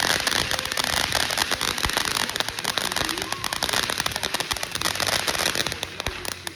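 Ground firework crackling: a dense, rapid run of small pops.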